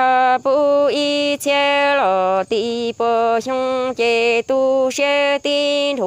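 A solo voice singing Hmong kwv txhiaj, traditional sung poetry, one syllable at a time on held level notes. Short breaks fall between syllables, and the pitch drops a step now and then.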